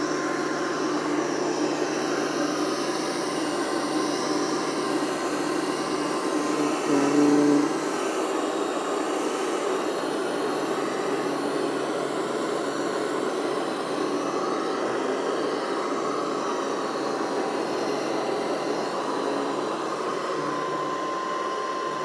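SwitchBot K10+ Pro mini robot vacuum running, a steady whir of its suction motor and brushes, swelling briefly louder about seven seconds in.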